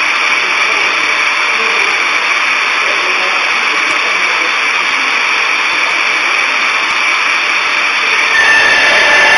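Two-saw circular edging machine running, its blades spinning with a steady loud whine and hiss. About eight seconds in the sound grows louder and fuller with a new steady tone, as a board starts through the saws.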